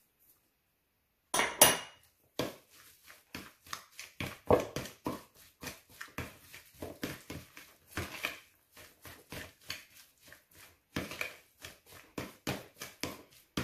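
Metal fork clinking and scraping against a ceramic bowl while mashing and mixing crumbled tofu, irregular clicks a few a second. Two louder knocks come about a second and a half in.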